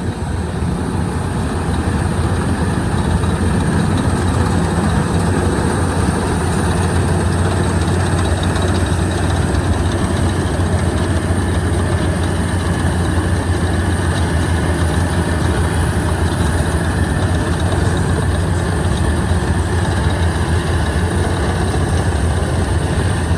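Diesel engine of a tracked Yanmar rice combine harvester running steadily, working in soft, boggy paddy mud. It grows a little louder over the first couple of seconds, then holds even.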